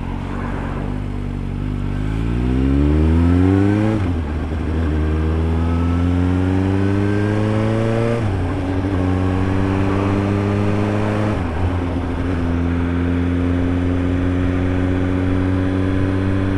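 Suzuki GSR750's inline-four engine through an SP Engineering Tri-oval aftermarket exhaust, accelerating through the gears. The note rises, drops at each of three upshifts, then settles to a steady cruise.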